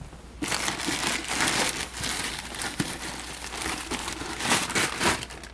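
Parcel packaging crinkling and rustling as it is pulled open by hand, starting about half a second in, with a few sharp crackles.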